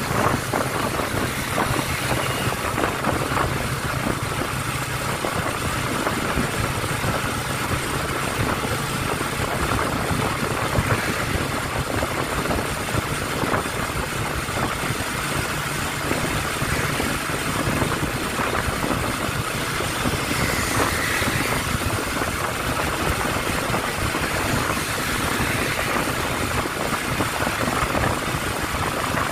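A 110 cc motorcycle engine running steadily at cruising speed, heard from a phone mounted on the bike, with wind and road noise over the microphone.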